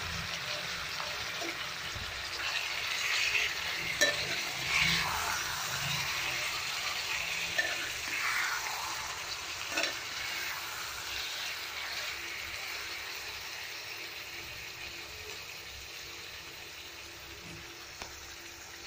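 Chicken pieces, onions and spice paste being stirred and turned over in a hot aluminium pan, sizzling as they fry, with a spoon knocking against the pan a few times. The frying is busiest in the first half and gradually quietens.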